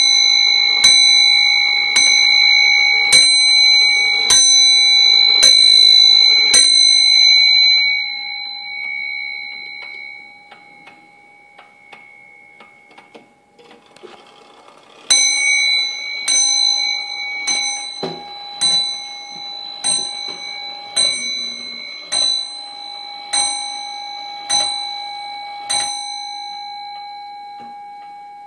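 An 1860s walnut eight-day spring-driven wall clock striking on the bell in its case, about one blow every second, each blow ringing on into the next. The clock gives about six blows, rings out to leave its faint ticking, then strikes a second run of about ten blows about halfway through, which ring away.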